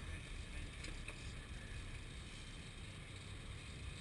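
Steady low rumble with an even hiss: a sportfishing boat's engine running and water moving along the hull, with a faint tick about a second in.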